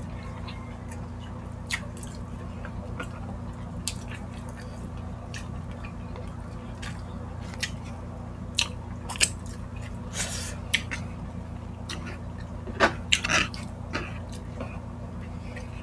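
Close-up chewing and wet mouth smacks of two people eating rice and pork-liver stew (higadillo). Scattered short clicks come throughout, with the loudest burst of them about thirteen seconds in, over a steady low hum.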